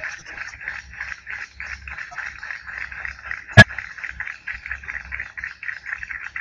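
Busy tenpin bowling alley: a steady rapid clatter of balls, pins and pinsetting machinery, with one sharp loud crack about three and a half seconds in.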